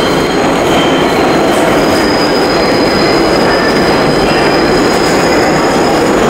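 New York City subway train moving through the station: a loud, steady rumble with thin, high-pitched wheel squeal over it.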